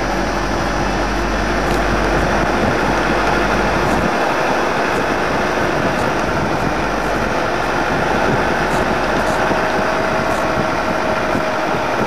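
Steady running noise of a slow-moving car, engine and tyres on a dirt track, picked up at the car's window; a low hum in it drops away about four seconds in.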